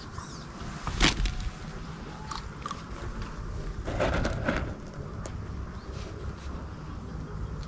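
A sharp click about a second in, then a brief crunchy rustle about four seconds in as a hand picks fishing pellets from a bait tray, over a steady low rumble.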